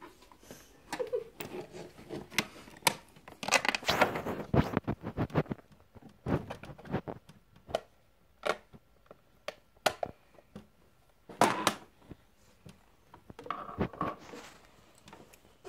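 Close handling noise: scattered sharp clicks and taps with rustling and crinkling, busiest about four seconds in, from small plastic makeup items being picked up, opened and set down on a table.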